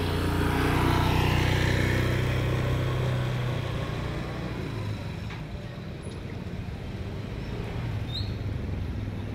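Motor vehicle engine running close by, loudest in the first few seconds and then fading as the vehicle moves away.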